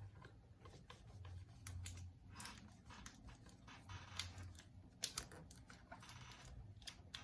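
Faint, irregular light clicks and crackles of Scotch tape being handled: pulled from the roll and pressed onto a pane of glass.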